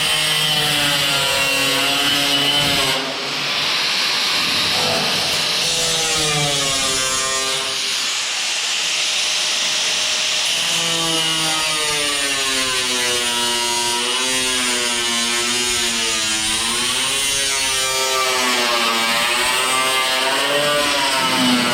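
Power cut-off tool slicing through car body sheet metal, its whine rising and falling as the wheel loads up in the cut, with brief let-offs about three and eight seconds in.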